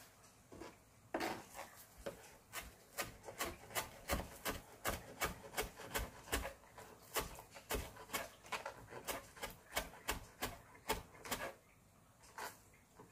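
Kitchen knife chopping finely on a cutting board: a steady run of sharp taps, about three a second, that stops shortly before the end.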